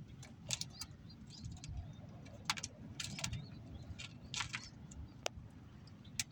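Outdoor background at a rooftop pigeon loft: a steady low rumble with scattered sharp clicks and ticks, and a few faint, brief bird chirps.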